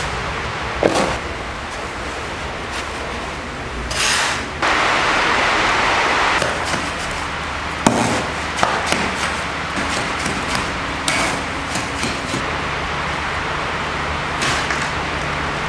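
A steel shovel scraping and knocking on a concrete floor as wet concrete is mixed and shovelled, with sharp clicks of the blade and a harsh rushing noise for about two seconds some five seconds in.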